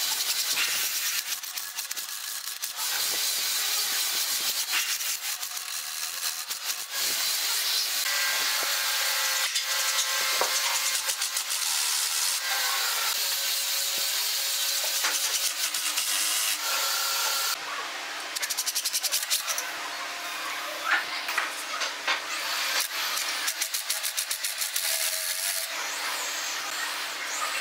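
Workshop work on a pine frame: a cordless drill running in short spells, among many small clicks, knocks and scraping noises from clamps being wound and wooden parts being handled.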